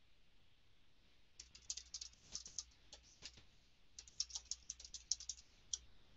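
Faint typing on a computer keyboard: two runs of quick key clicks, the first starting about a second and a half in, the second about four seconds in.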